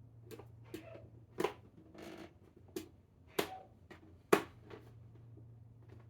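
Rubber gasket being pulled off a plastic toy helmet: about seven irregular sharp clicks and taps of plastic, with a short rubbing scrape about two seconds in.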